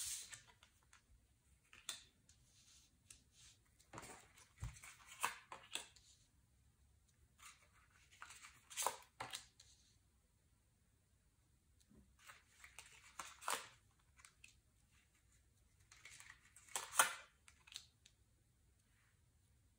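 Tarot cards being drawn from the deck and laid down on a cloth surface: faint slides, flicks and taps of card stock in several short clusters with quiet gaps between.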